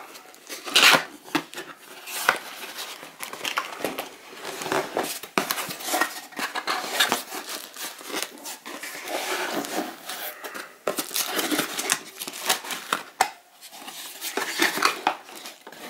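Cardboard packaging being opened and handled by hand: flaps pulled open and an inner carton slid and pushed, giving irregular scrapes, rustles and soft knocks with no steady rhythm.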